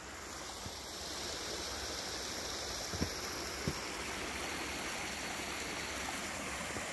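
Small woodland stream running, a steady rush of water that grows a little louder about a second in. Two soft knocks in the middle.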